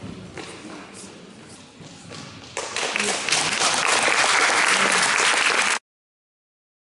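Audience applauding at the end of a gymnastics floor routine, breaking out about two and a half seconds in over low hall noise. It cuts off abruptly near the end.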